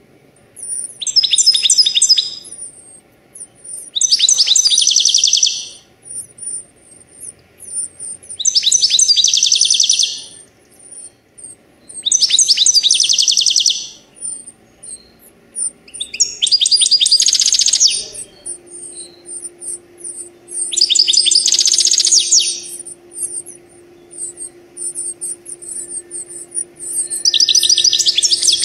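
Birdsong of cardinals and a goldfinch: a loud phrase of rapid repeated notes about every four seconds, over a continuous thin, high twittering. A steady low hum starts a little past the middle.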